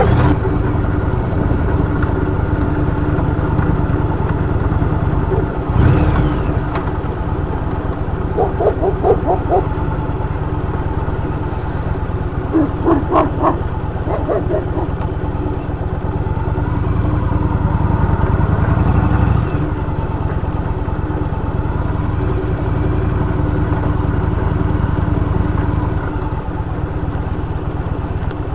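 A vehicle's engine running steadily under wind and road rumble while driving along. Two brief clusters of short, quick pulsing sounds break in, about eight and about thirteen seconds in.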